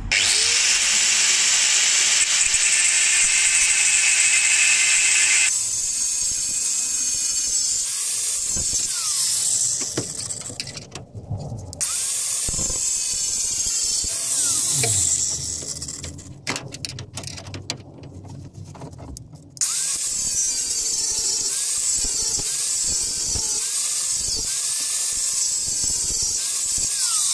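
Electric angle grinder with a cutting disc cutting into a seized rear axle beam mounting nut and bolt through a car's steel floor pan. It runs in several loud bouts, with short breaks about ten seconds in and again from about sixteen to twenty seconds.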